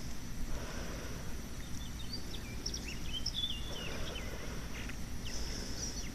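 Outdoor field ambience: a bird calling in quick chirps and short gliding whistles, mostly in the middle and again near the end, over a steady high insect drone and a low rumble.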